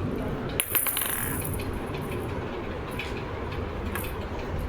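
Metal kitchen utensils clinking: a sharp clatter about half a second in with a high metallic ring that fades over about a second, then a few lighter clinks later on, over a steady low rumble.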